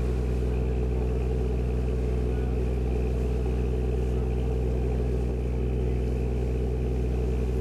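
Sightseeing boat's engine running steadily under way: a constant low drone with an even hum.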